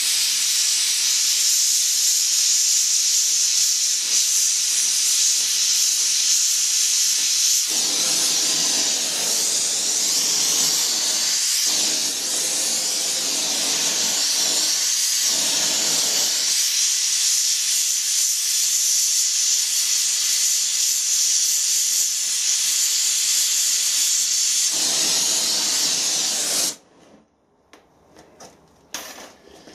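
Gas brazing torch flame hissing steadily while brass is laid over a crack in a cast-iron steam brake cylinder, the sound going fuller and deeper for several seconds near the middle. The hiss cuts off suddenly near the end as the torch is shut off, followed by a few faint knocks.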